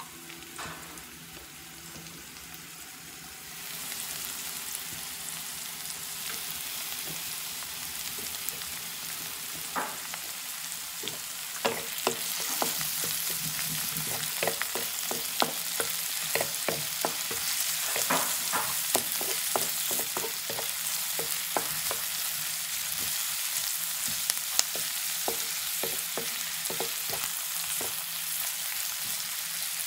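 Sliced onion and ginger sizzling in hot oil in a wok while a spatula stirs them, scraping and clacking against the pan. The sizzle gets louder about four seconds in, and the spatula strikes come thick and fast from about ten seconds on.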